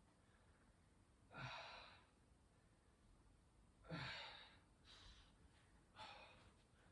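Faint, short breathy exhalations, four of them spaced a second or two apart, against near silence.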